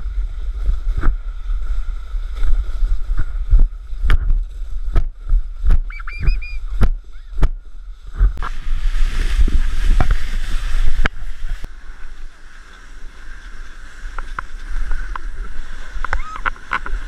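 Sled sliding fast down a packed snow track, heard from a camera mounted on the sled: a rumbling scrape with wind on the microphone and many sharp knocks as the sled and its camera mount jolt over bumps. About halfway through comes a stretch of loud hissing, like snow spraying up.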